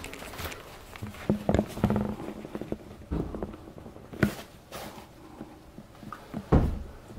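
Handling noise from a phone camera being moved and set down in place: scattered knocks, rubbing and rustles, with a bump about four seconds in and a heavier thud near the end.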